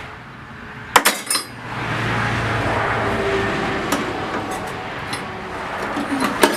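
Small metal hand tools clinking as they are handled and set down. There are a few sharp clinks about a second in and again near the end, with duller handling noise in between.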